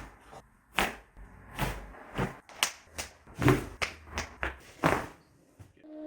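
A quick run of about ten sharp cracks: spine and neck joints popping under osteopathic manipulation.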